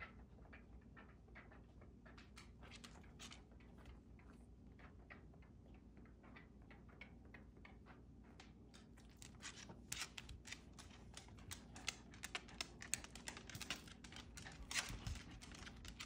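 A Scottish terrier's claws clicking on a hardwood floor as it walks, faint and sparse at first, then quicker and louder from about nine seconds in.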